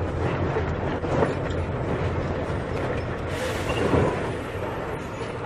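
Volkswagen Volksbus 17.230 EOD diesel city bus running, a steady low engine rumble with rattling road noise. A brief hiss comes a little past three seconds in, and a single knock follows near four seconds.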